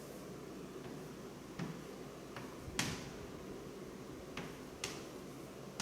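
A few sharp, scattered taps of a pen on the writing surface while a diagram is drawn, the loudest about three seconds in, over a steady low hum.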